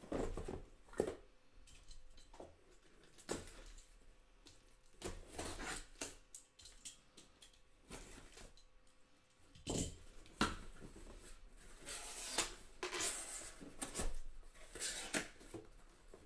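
Cardboard being handled: scattered scrapes, rustles and knocks as a taped cardboard case is opened and the card boxes inside are slid out and set down, busier in the second half.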